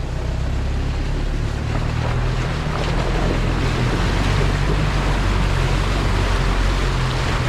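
Toyota Prado 120 four-wheel drive pushing through a 700 mm deep river crossing: the engine runs steadily under a rushing, splashing wash of water that builds from about two seconds in.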